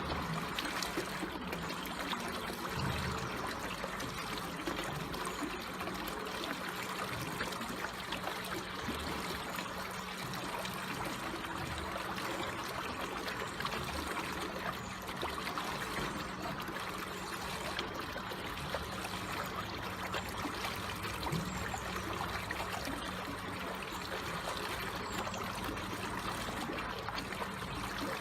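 Water flowing and trickling steadily, a gentle stream-like burble.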